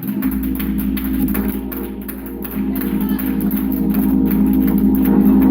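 Gospel church organ music: held organ chords over a low bass note that comes in right at the start, with a steady drum-and-cymbal beat.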